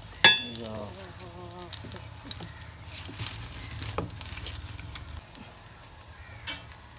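Coconut oil sizzling as urad dal vadas deep-fry in an iron wok over a wood fire, with scattered crackles from the burning fuel. Just after the start a sharp ringing clink is the loudest sound, followed by a brief wavering voice-like sound.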